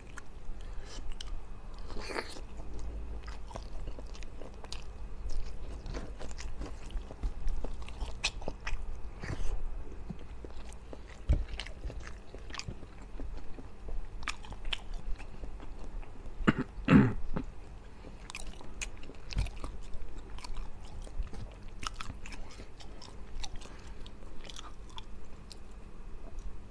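Close-miked eating sounds from a man eating rice and fried fish with sambal by hand: steady chewing, biting, lip smacks and wet mouth clicks. One louder short sound comes about seventeen seconds in.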